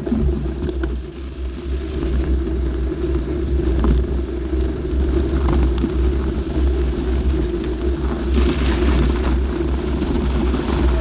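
Steady rumble of wind buffeting a bike-mounted camera's microphone, mixed with mountain bike tyres rolling over packed snow. A short hiss rises over it a little after eight seconds in.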